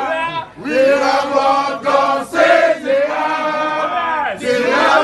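A group of male voices chanting together in long held notes, in phrases with brief breaks between them.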